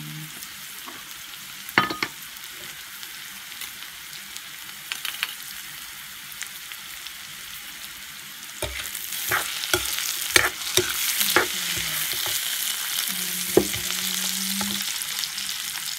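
Carrot strips and onions sizzling in a large wok while a metal ladle and spatula stir them, scraping and clinking against the pan. About halfway through, the sizzle gets louder and the clinks come thick and fast.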